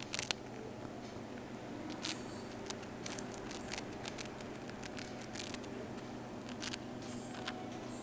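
Hamster gnawing a piece of biscuit: irregular sharp crunching clicks, a few a second, over a steady low hum.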